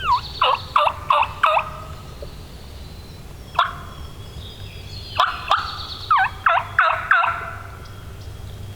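Turkey calling in two runs of about five short, falling yelps each, with a single yelp between them.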